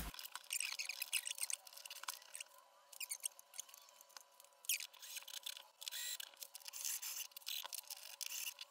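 Faint scattered clicks and scratches of hands handling screws and fitting them into holes in a sofa's wooden frame.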